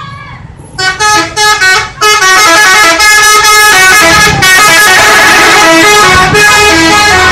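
Telolet bus horn, a multi-tone musical horn: a few short blasts about a second in, then a loud, continuous melody of changing notes.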